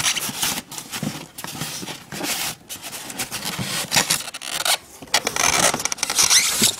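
Cardboard box and packaging rustling and scraping in irregular bursts while a new grinder is unpacked.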